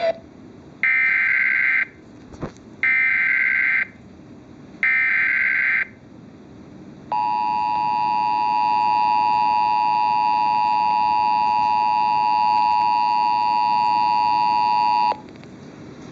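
Emergency Alert System activation heard over a radio broadcast. It opens with three buzzy one-second digital header bursts about a second apart, which encode the alert's details. After a short pause comes the steady two-tone attention signal, held for about eight seconds, which cuts off suddenly and leaves faint radio hiss.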